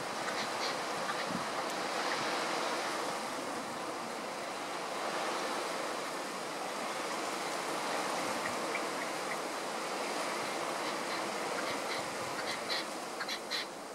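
Steady wind noise that slowly swells and eases. A few short, high bird calls come in near the end.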